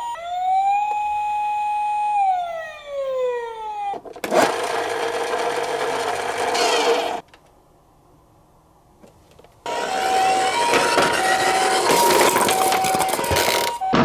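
Toy emergency vehicles' electronic sirens. First comes a single wail that rises, holds and falls away over about three seconds. A loud rushing noise follows for about three seconds, then a short near silence. From about ten seconds in, the two-tone 'pee-po' ambulance siren alternates high and low about once a second over the rushing noise.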